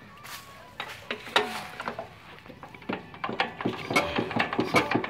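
Small single-cylinder diesel engine being hand-cranked with a starting handle: a few clanks about a second in, then from about three seconds in a quickening run of sharp, even knocks as it is spun up to start.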